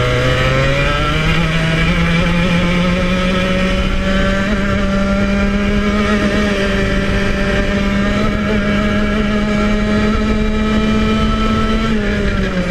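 Club100 115cc TKM two-stroke kart engine running hard, heard from onboard. Its note climbs quickly about a second in as the kart picks up speed, then rises slowly and steadily, and falls away near the end.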